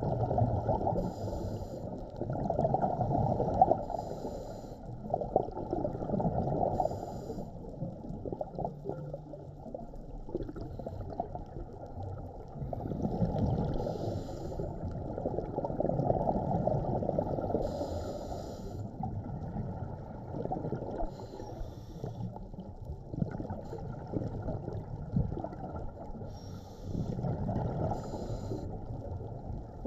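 Scuba diving heard underwater: air bubbling up from regulator exhalations in low rumbling swells, with a short high hiss from the regulator on each inhalation every few seconds.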